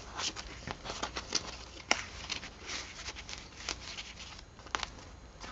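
Handling the paper pages and tags of a handmade junk journal: scattered crisp rustles and small clicks, one every fraction of a second.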